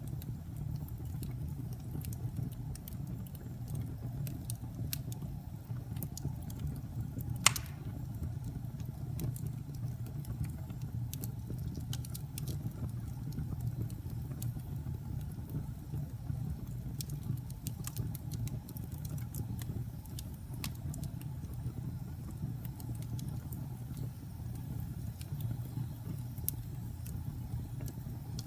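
Wood fire burning in a fireplace: irregular small crackles over a steady low rumble, with one sharp loud pop about seven seconds in.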